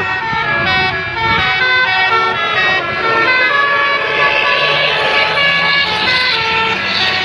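Bus telolet horn of the basuri type playing its multi-note melody: loud horn tones stepping quickly from pitch to pitch, over and over.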